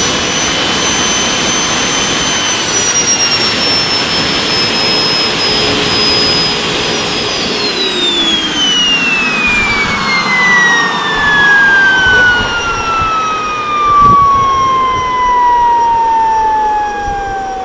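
Handmade turbojet engine running with a rushing noise and a high whine. About 7 seconds in, the whine starts falling steadily and keeps dropping to a low pitch by the end as the turbine spools down.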